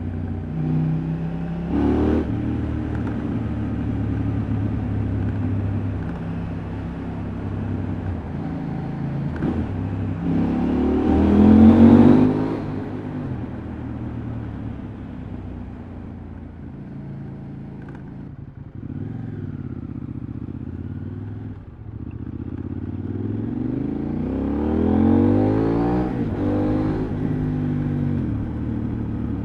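KTM 790 Adventure's parallel-twin engine and exhaust under riding load, revving up to a loud peak about twelve seconds in, easing off, then pulling up again near the end.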